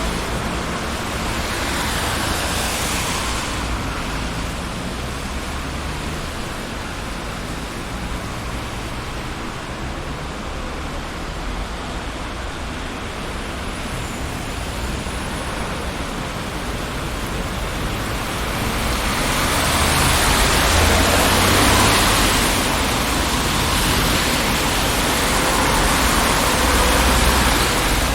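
City street traffic: a steady wash of cars passing, with louder vehicles going by around the start and again through the last third.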